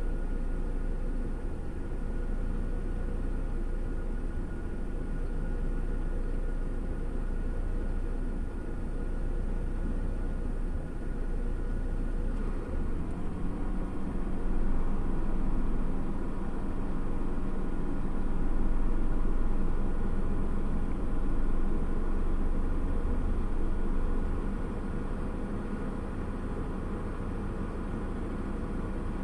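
Steady idling engine hum heard from inside a parked vehicle's cab, a little louder through the middle stretch.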